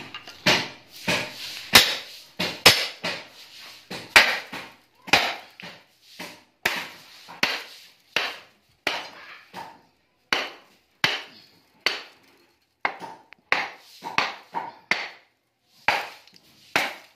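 Hammer blows on the transformer of a scrapped welding machine as it is broken apart to free its copper windings: a long run of sharp metal strikes, about one to two a second and irregularly spaced, each ringing briefly.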